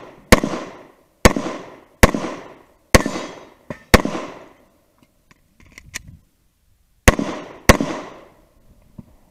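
Glock semi-automatic pistol firing seven shots, each a sharp bang with a short ringing tail: five about a second apart, a pause of about three seconds, then two more in quick succession.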